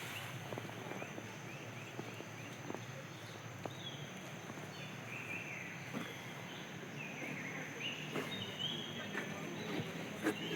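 Chorus of short, high-pitched animal calls, many stepping down in pitch, coming more thickly in the second half, over a steady high whine, with a few light clicks.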